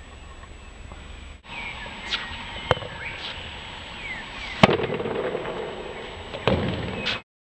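Tennis ball struck with the racket on one-handed topspin backhands: three sharp hits about two seconds apart, the middle one loudest, with birds chirping.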